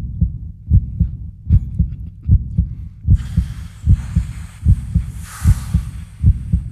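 Heartbeat sound effect: a deep double thump, lub-dub, repeating about 77 times a minute. From about three seconds in, a hissing whoosh swells over it, loudest about five and a half seconds in, then fades.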